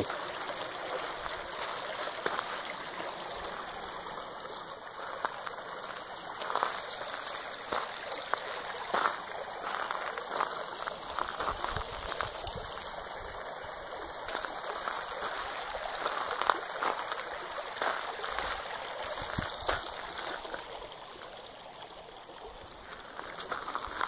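Shallow rocky creek flowing over stones, a steady rushing babble of water that grows fainter near the end.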